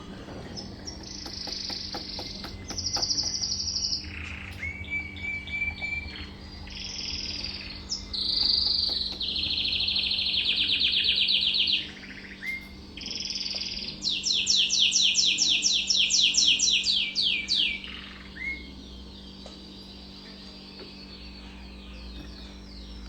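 Mosaic canary singing a long song of rapid trills and rolls, each phrase at a different pitch. The loudest is a fast rolling trill near the middle-to-late part, and the song stops a few seconds before the end.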